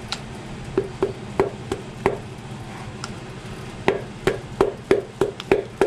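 Light taps of a hammer's handle on a piston crown, driving the ringed piston through a ring compressor into the LS2 cylinder bore. The taps come about three a second, pause briefly after about two seconds, then resume in a quicker run near the end.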